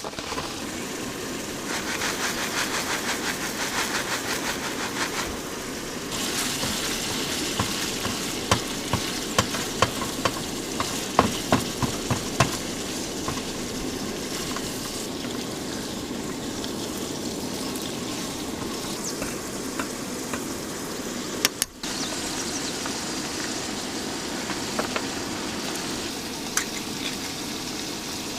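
Food frying in a pan with a steady sizzle, and a run of sharp clinks and scrapes from a cooking utensil a few seconds in.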